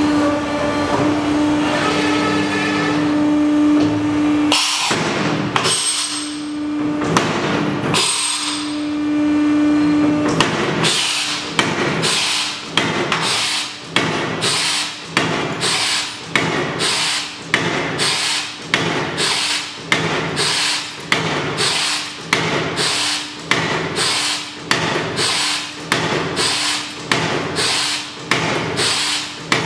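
Hydraulic press station of a tube and profile processing machine working square steel tube. The hydraulic pump hums steadily. A few separate press strokes come in the first ten seconds, then a regular clanking cycle of about one stroke a second.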